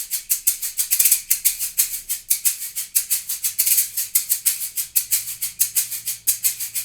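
Shaker played in a steady, even groove, held level and swung with the whole arm, giving a regular stream of crisp shakes at about four to five strokes a second.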